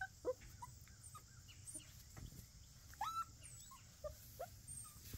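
Puppies squeaking and yipping in short high calls as they play-wrestle, with one longer rising whine about three seconds in.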